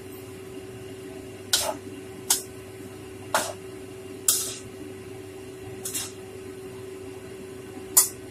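A metal spatula scraping and clanking against a stainless-steel wok as rice vermicelli with cabbage and carrot is stir-fried, about six separate strokes, the loudest near the end. A steady low hum runs underneath.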